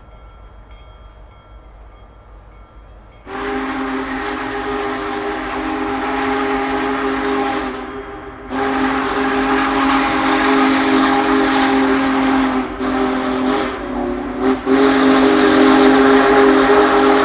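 Union Pacific Big Boy 4014's chime steam whistle blowing, a steady chord of several tones sounding together. It comes in loud about three seconds in and holds for several seconds, stops briefly, then blows again in a long blast broken by a few short gaps.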